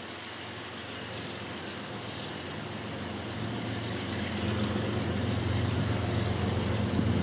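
Diesel locomotive approaching, its low engine drone growing steadily louder.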